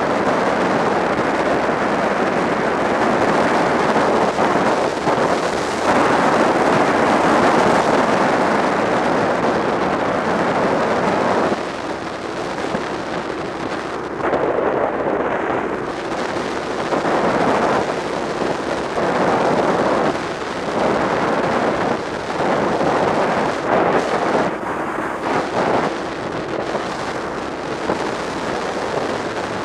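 Wind rushing and buffeting on the microphone of a moving motorcycle, with the bike's engine running underneath. The rush is steady and loud at first, drops about a third of the way in, then rises and falls unevenly.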